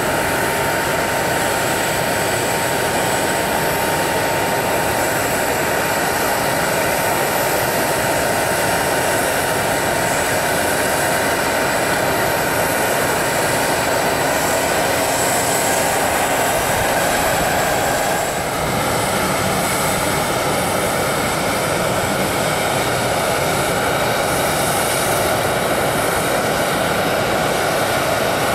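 Airbus jet airliner engines running steadily at low power: a loud, broad rush with a high whine. The tone shifts with a brief dip about two thirds of the way through.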